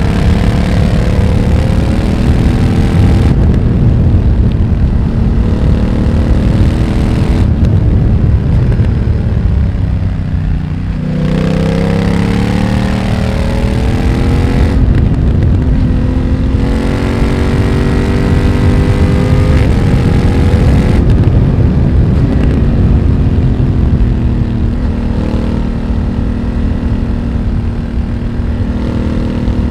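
A 2020 BMW F900R's parallel-twin engine breathing through a Mivv X1-M aftermarket exhaust under way. The engine note rises and falls repeatedly with the throttle, dips to its lowest about ten seconds in, then climbs again several times as the bike accelerates.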